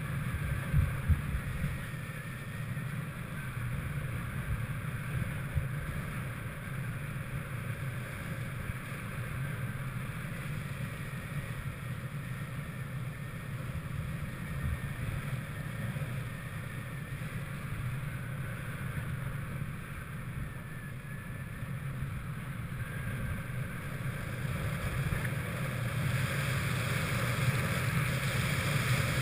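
Steady wind rushing over a helmet-mounted camera's microphone during parachute canopy flight after a BASE jump, getting somewhat louder near the end.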